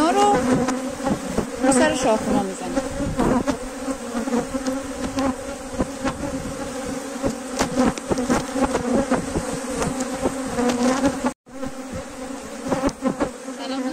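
A mass of honeybees buzzing around an open hive: a dense, steady hum with scattered small clicks. The sound cuts out for an instant about three quarters of the way through.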